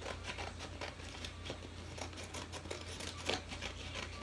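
Scissors snipping through a sheet of cardstock in a quick, irregular run of short cuts, with paper rustling as the sheet is handled.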